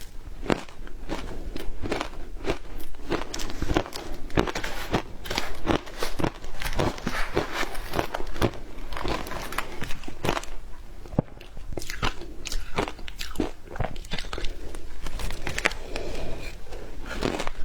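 Frozen matcha ice being bitten and chewed, a close run of irregular hard crunches throughout.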